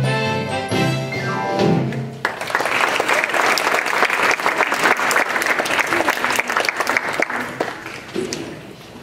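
A middle-school choir with accompaniment holds the last notes of a song, which end about two seconds in. The audience then applauds, and the clapping fades out near the end.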